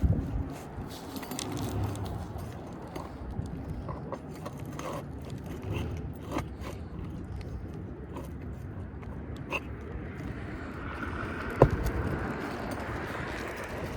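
Metal hand tool scraping and clicking against asphalt shingles and roofing nails as old nails are worked loose from under a lifted shingle. One sharp knock comes a little past two-thirds of the way through.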